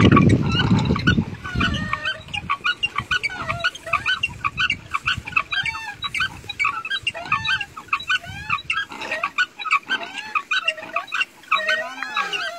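Water from a bullock-drawn well bucket gushing into the irrigation channel for the first second or so. Then a dense, irregular run of short high chirps and squeaks, several a second.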